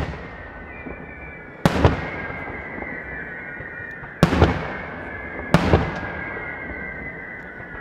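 Daytime aerial firework shells bursting: three loud bangs a second and a half to two and a half seconds apart, each a quick double report. A high, slowly falling whistle runs underneath.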